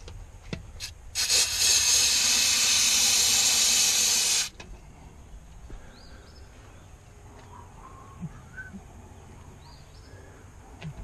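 Aerosol can of carburetor cleaner spraying in one steady hiss of about three seconds into the outboard's carburetor, cutting off sharply.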